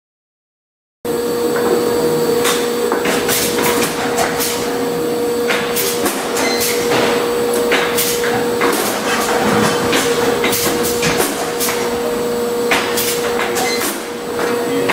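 Schäfer & Flottmann SFS 374 wrap-around case packer running, starting about a second in: a steady machine hum with a constant tone, broken by frequent sharp clacks and knocks from its moving parts.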